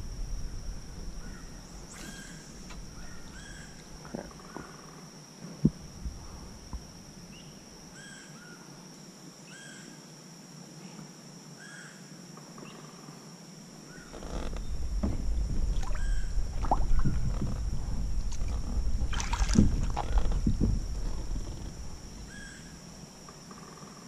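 Outdoor creek ambience from a fishing kayak: a steady high insect drone with short bird chirps repeating every few seconds. From about 14 s to 22 s a louder low rumble with scattered knocks and splashes takes over.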